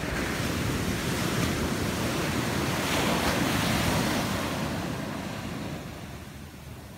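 Ocean surf: a wave breaking on the shore and its foam washing up the sand, swelling in the first second and fading away after about five seconds.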